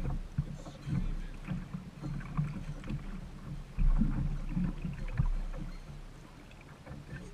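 Sounds aboard a small fishing boat: a steady low rumble with irregular knocks and thumps, the loudest about four seconds in.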